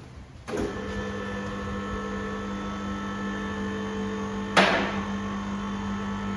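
A steady machine hum with several fixed pitches starts suddenly about half a second in and runs on evenly, with one sharp knock a little over four seconds in.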